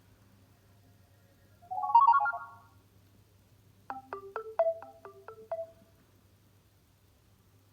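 Nokia Lumia 520 message alert tones: a short bright chime about two seconds in, then a quick run of about eight plinking notes stepping up and down, about four seconds in.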